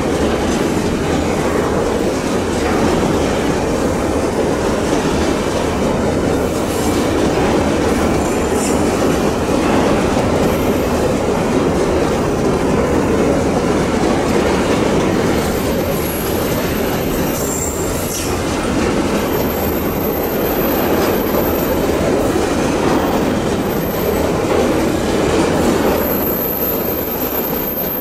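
Empty coal wagons of a long Babaranjang freight train rolling past on a curve: a loud, steady rolling noise of steel wheels on rail. From about halfway on, high-pitched wheel squeal comes and goes as the flanges grind through the bend.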